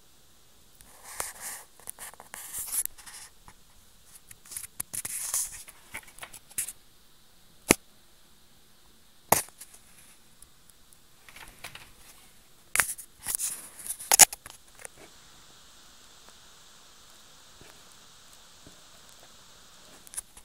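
A cat's claws scratching and scraping at a wooden door in short bursts, with a few sharp clicks in between.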